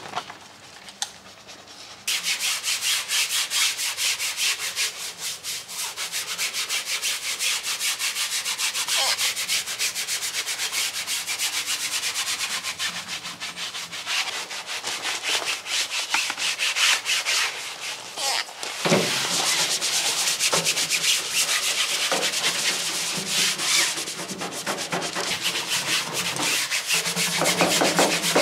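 Detailing brushes scrubbing soapy foam over a car's body panels: a dense run of rapid rubbing strokes that starts about two seconds in, breaks off for a moment near two-thirds of the way through, then carries on.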